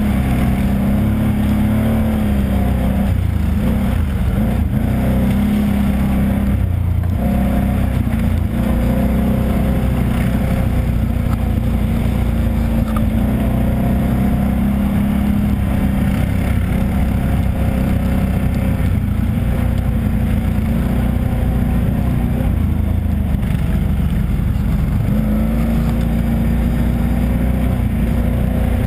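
ATV engine running continuously under load while riding a muddy trail, its pitch rising and falling a little with the throttle, over steady wind and trail noise.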